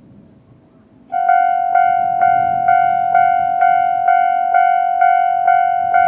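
Japanese railway level-crossing alarm starting about a second in: a loud ringing electronic bell tone, struck about twice a second and repeating steadily.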